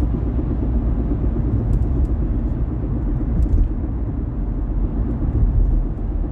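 Vauxhall Corsa D driving, with a steady low road and engine rumble and a few faint light taps. This is the knocking and tapping noise, heard when accelerating and decelerating, that the owner is trying to diagnose; it has not been cured by new coil springs and rear shocks.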